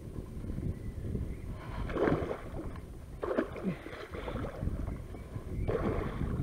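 Pike splashing at the surface beside a boat as it is brought to the landing net, in three bursts about two, three and a half and six seconds in, over a low rumble of wind on the microphone.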